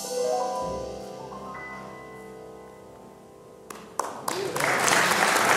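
The last notes of a jazz ballad from a piano, tenor sax, upright bass and drums quartet, piano to the fore, ring out and fade. About four seconds in, a few single claps start the audience applause, which quickly swells to full.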